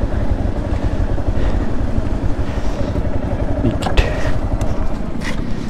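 Yamaha R15's single-cylinder four-stroke engine running at low speed as the bike creeps along, a steady low rumble, with one sharp click about four seconds in.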